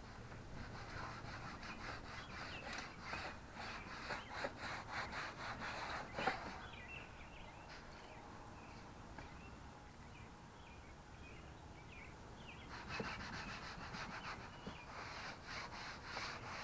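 An applicator rubbing plastic restorer into a car's plastic trim: quick back-and-forth strokes for several seconds, a pause of about six seconds, then the strokes start again near the end.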